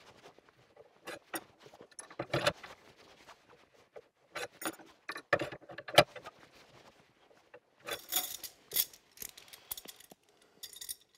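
Metal clinks, knocks and rattles from a homemade bar-twisting jig and its steel lever as 6 mm round steel rods are twisted one after another and then handled together as a bundle. The clatter comes in bursts, with one sharp metal knock about six seconds in.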